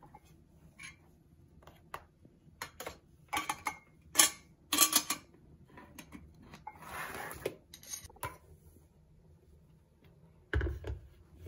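Metal teaspoon clinking and tapping against a metal tea tin and a ceramic mug in a run of sharp clicks, loudest about halfway through, then a scrape and clicks as the tin's metal lid is pressed shut. A low thump near the end as the electric kettle is lifted.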